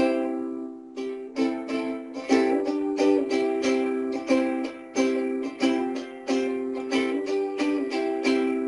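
Ukulele strummed: one chord rung out, then from about a second in a steady strumming pattern of about three strums a second, the instrumental intro of a song.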